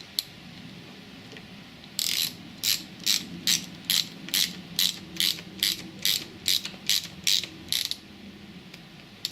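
Ratchet wrench clicking in steady, evenly spaced back-strokes, about fourteen in all at roughly two and a half a second, starting about two seconds in and stopping near the end: a clamp bolt being tightened while fitting a clutch lever.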